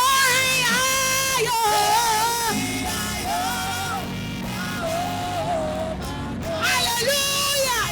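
A worship leader singing long, sliding notes over a live church band, with louder belted phrases at the start and near the end.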